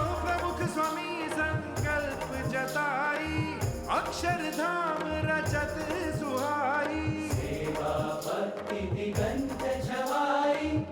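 Indian devotional song music between sung verses: an ornamented melody with sliding, wavering notes over steady drumming.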